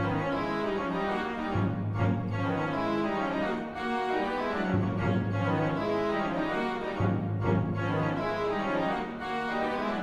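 Organ playing sustained chords, with its low bass notes changing every two seconds or so.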